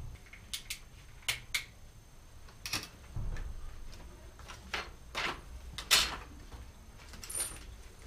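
Scattered metallic clicks, rattles and knocks of a bicycle being handled and lifted around a repair stand, the loudest knock about six seconds in.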